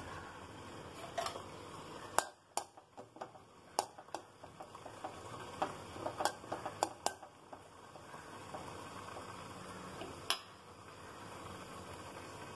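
Metal spoon clicking and scraping against an aluminium kadai as cashews are stirred in hot ghee, over a faint steady sizzle. The taps come in a run between about two and seven seconds in, with one more near ten seconds.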